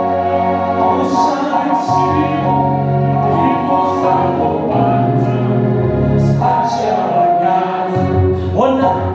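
A church congregation and choir singing a gospel chorus in long held notes, with instrumental backing underneath.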